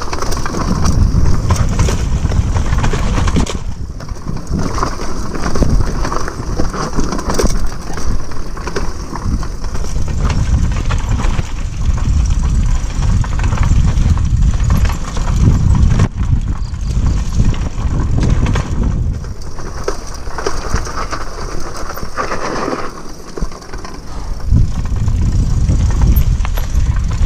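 Mountain bike rolling down a bumpy dirt trail: tyre rumble and the frame and parts rattling over the ground, with heavy wind buffeting on the handlebar-mounted action camera's microphone.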